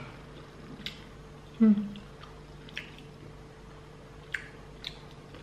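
Crispy air-fried pork belly crackling being chewed and broken apart by hand: a scatter of short, sharp crackles. A brief hummed vocal sound about one and a half seconds in is the loudest sound, over a faint steady hum.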